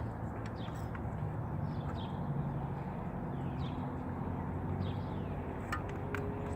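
A small bird chirping again and again, each chirp short and falling in pitch, over a steady low hum. A few sharp clicks come near the end.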